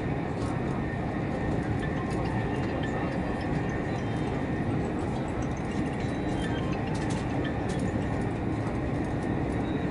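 Cabin noise inside a CRH5 high-speed electric multiple unit running at speed: a steady low rumble.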